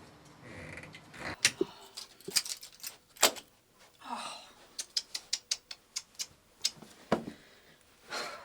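A series of sharp clicks and knocks, with a quick run of about five a second after the middle and two brief swishing sounds.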